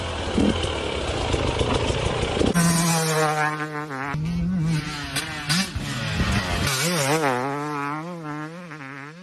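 Dirt bike engine. At first it is a close, rough, gritty engine noise. About two and a half seconds in it changes to a clearer engine note that rises and falls again and again with the throttle, growing quieter near the end.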